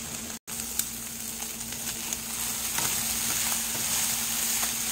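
Diced bacon sizzling in a nonstick frying pan as it renders its fat, with scattered small pops and a spatula stirring the pieces; the sizzle cuts out for an instant near the start and grows a little louder about halfway through.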